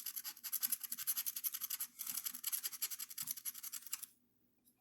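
Rapid scratching of the coating off a scratch-off lottery ticket, many quick scraping strokes a second, with a brief pause about two seconds in; it stops shortly before the end.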